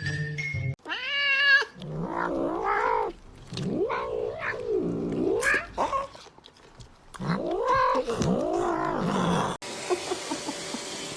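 A cat yowling (caterwauling) in a run of long, drawn-out calls whose pitch swells up and falls away. A steady hiss takes over near the end.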